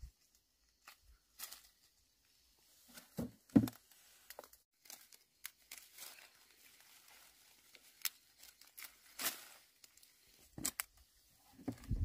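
Irregular rustling and tearing with scattered clicks, two low knocks a few seconds in, a longer rustle later on and a cluster of thumps near the end.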